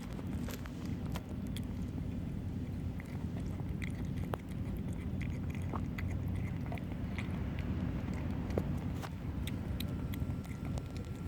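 Kittens eating, with many small wet chewing and lapping clicks over a steady low hum.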